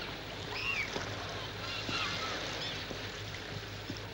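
Watery ambience over a steady low hum, with short high squeaky glides scattered through it.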